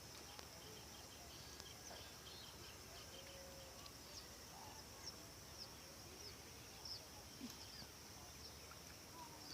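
Faint outdoor ambience: a steady high insect drone, with a few short bird chirps.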